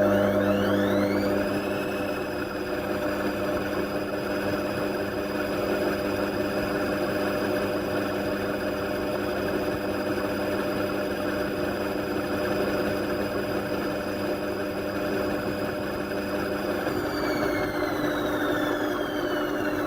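Indesit washing machine running: the motor's whine rises in pitch over the first two seconds as the drum speeds up, holds steady with a low hum, then falls away near the end as the drum slows.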